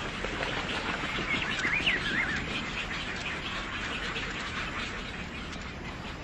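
Many birds calling at once in a dense stream of short chirps, with one louder warbling call rising and falling in pitch about a second and a half in.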